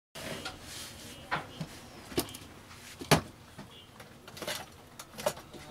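Scattered sharp clicks and light knocks from handling a TV circuit board and soldering tools on a workbench, about five of them, the loudest about three seconds in, over faint room hiss.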